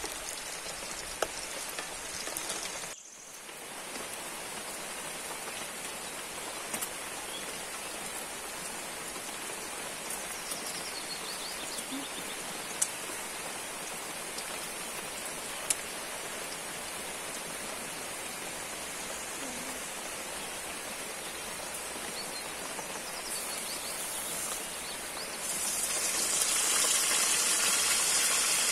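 Fish pieces deep-frying in hot oil in a steel wok, a steady sizzle with a few sharp clicks of a slotted metal spoon against the wok. Near the end the sizzle grows louder.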